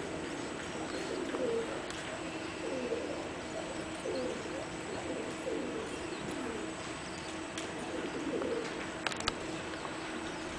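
Pigeons cooing, a low call repeated every second or so over a steady low hum, with a couple of sharp clicks about nine seconds in.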